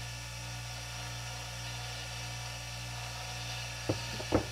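Bench grinder motor running steadily with nothing held against the wheel. Two sharp knocks come near the end.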